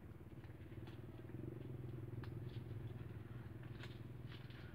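A small engine running steadily, a low hum that grows slightly louder about a second and a half in. Faint scattered clicks come from crabs being handled.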